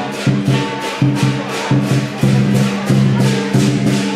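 Dragon dance music: loud percussion beating several times a second, over held low tones.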